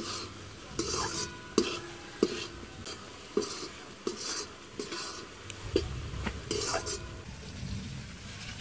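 Metal spatula stirring a thick, wet semolina laddu mixture in an aluminium kadai, with repeated scrapes and light clanks against the pan every half second or so.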